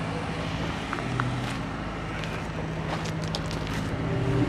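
A vehicle engine running steadily with a low hum, with a few faint clicks over it.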